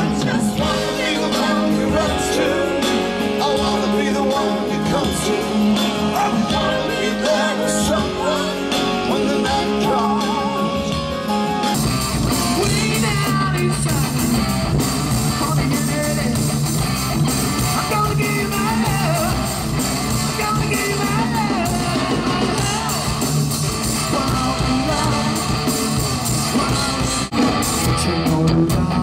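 Live rock band music with a male singer, guitar and keyboards. About twelve seconds in it cuts abruptly to another live rock band, with bass guitar and singing.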